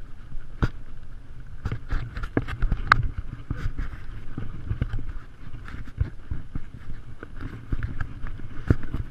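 Horse walking down a rocky dirt trail, its hooves giving irregular knocks and clicks, over a steady low rumble of wind on the microphone.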